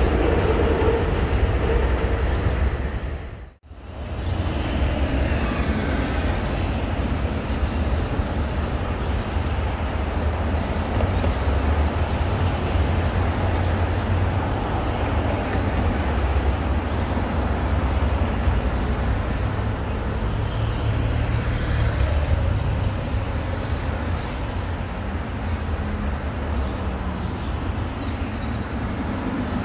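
An elevated subway train running on the steel el structure, cut off sharply about three and a half seconds in. Then steady street traffic: cars, and a bus passing by, with a low rumble.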